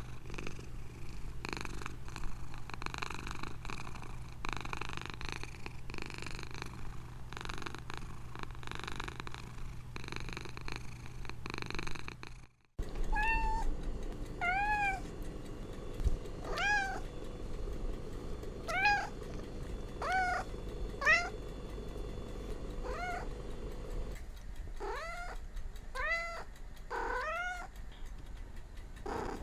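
Domestic cat purring with a steady rhythmic rumble for about twelve seconds. Then, after a sudden cut, a cat meows repeatedly, about ten rising-and-falling meows that come in a quicker series near the end.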